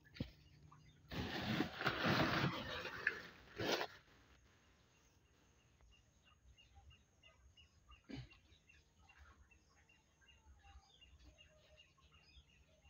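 Handling noise of a handheld phone: about three seconds of rustling and rubbing against the microphone, then a single knock. After that only faint, quick high chirps, about two or three a second, over a quiet background.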